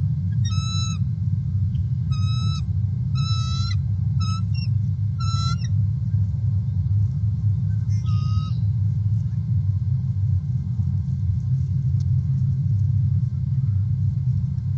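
A series of five short, chattering bird calls in the first six seconds and one more about eight seconds in, over a steady low rumble.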